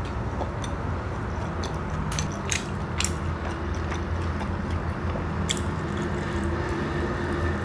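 Close-miked chewing of a fried Indonesian snack (gorengan), with a few sharp, crisp crackles over a steady low hum.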